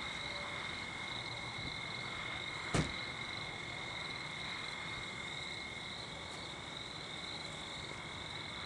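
A steady, high-pitched chorus of calling animals, insects or frogs, with a fine pulsing trill over a held note. A single short knock about three seconds in.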